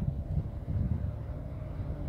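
Wind buffeting the microphone in uneven gusts, with a faint steady hum underneath.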